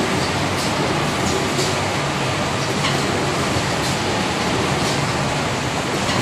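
Automatic wine box making machine and surrounding factory machinery running: a steady mechanical noise with faint ticks roughly once a second.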